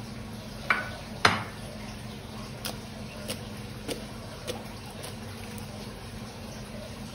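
Slime-making handling: two sharp clicks about a second in, then four lighter ticks spaced a little over half a second apart, over a steady low hum.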